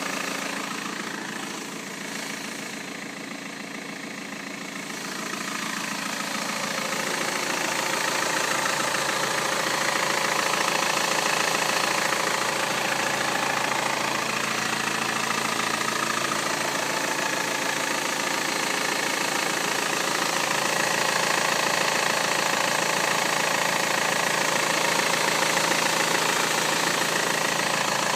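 BMW 320d's four-cylinder diesel engine idling cold, making the noise it has only when cold. The sound dips a little early on, grows louder over a couple of seconds, then holds steady.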